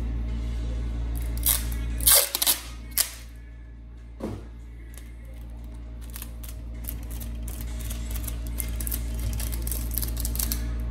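Clear packing tape pulled off the roll: a few loud rips about two seconds in, then a run of fine crackling as more tape is unwound and handled.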